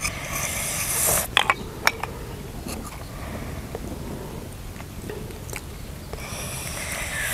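Handling grilled snails: a few sharp clicks of shell and wooden skewer a second or so in, as the meat is prised out of the shell. There is a hissing noise near the start and again near the end.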